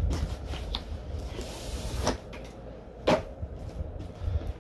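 Cardboard being handled: a boxed figure is pulled out of a brown cardboard shipping box, with a short sliding scrape and a few sharp knocks, the loudest about three seconds in.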